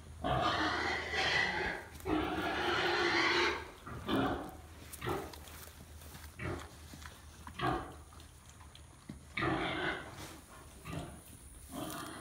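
Pigs in a pen grunting, in a string of separate calls of varying length.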